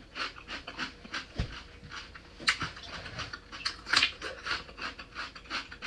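Close-up crunching and wet chewing of raw cucumber, a quick run of crisp mouth noises with sharper crunches of bites about two and a half and four seconds in.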